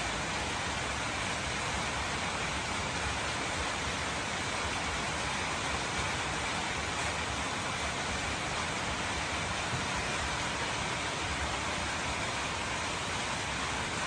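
Steady rain falling at night, an even hiss with no separate drops or other events standing out.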